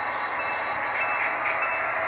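Model train locomotives running on the layout track: a steady whirring of small motors and metal wheels, with a thin, steady high whine.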